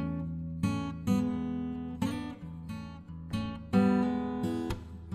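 Background music: acoustic guitar chords strummed about once a second, each ringing out before the next.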